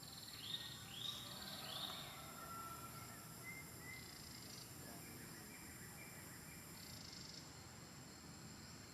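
Outdoor animal sounds: a steady high insect drone, with three short calls falling in pitch in quick succession in the first two seconds.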